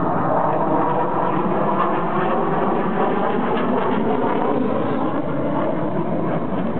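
Military jet flying overhead, its engine noise a loud, steady rumble.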